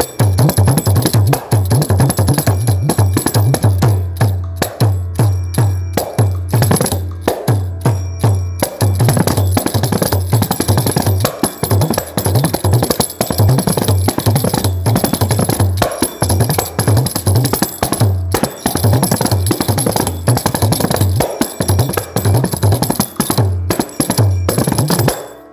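Kanjira, the small Carnatic frame drum with a single pair of jingles, played solo in a thani avarthanam: a fast, dense stream of strokes with deep bass tones and jingle rattle, breaking off just at the end.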